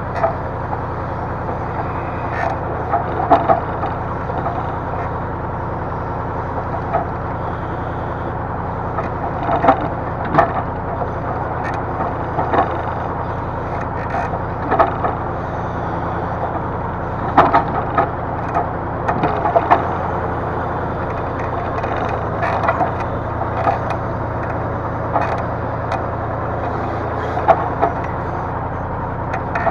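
Diesel engine of a hydraulic timber loader crane running steadily, with scattered knocks and clatters every few seconds as logs are handled.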